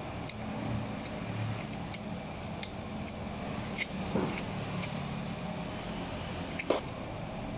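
A small knife clicking and scraping as it cuts the skin off jengkol (dogfruit) seeds, a handful of short ticks with the sharpest near the end, over a steady low background rumble.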